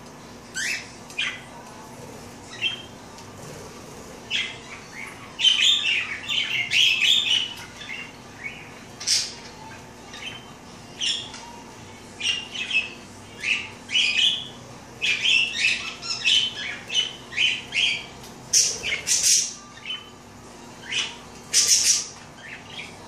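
Budgerigars chirping and squawking in many short, high calls. Near the end there are a few louder bursts of water splashing and wing fluttering as a budgie bathes in a plastic bird bath.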